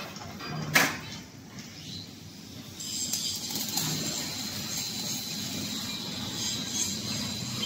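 A single sharp metal clank about a second in, then from about three seconds a steady high-pitched hiss of an angle grinder working steel in the background.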